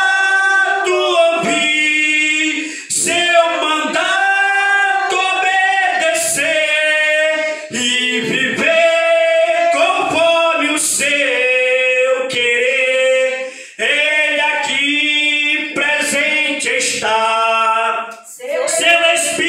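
A man singing a Portuguese hymn unaccompanied into a handheld microphone, in several long phrases with short breaks for breath between them.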